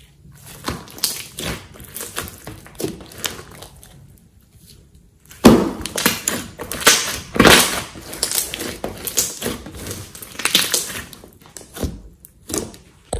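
A large mass of glossy green slime squeezed, folded and poked by hand, giving irregular bursts of wet squishing and crackling pops. After a quieter stretch, the loudest squeeze comes about five and a half seconds in.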